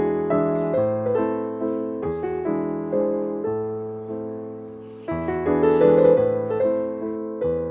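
Soft background piano music, notes struck and left to ring, with a louder chord about five seconds in.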